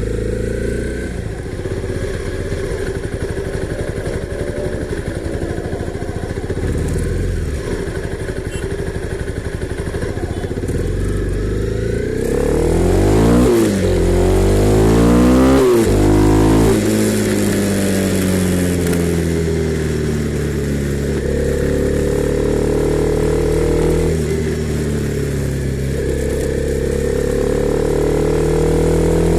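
Honda CB300R's single-cylinder engine running. Its revs climb and drop sharply several times about halfway through, then settle into slower rises in pitch with a couple of step drops.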